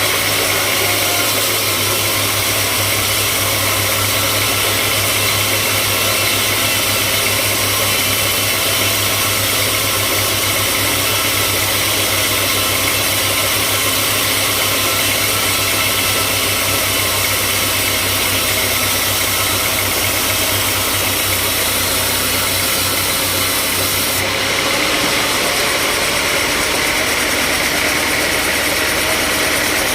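Sawmill machinery running steadily, a loud, constant engine-like hum with a wide hiss over it. The tone of the machine noise changes abruptly near the end.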